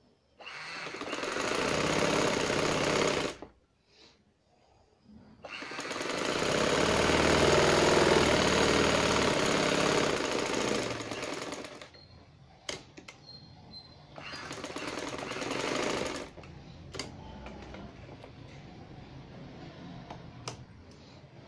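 Domestic sewing machine stitching a seam in three runs: a short run, a longer one that speeds up and then slows, and another short run. A few sharp clicks follow near the end.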